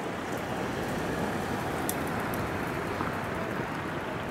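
Steady engine and tyre noise of a van and a truck driving along the road towards the listener.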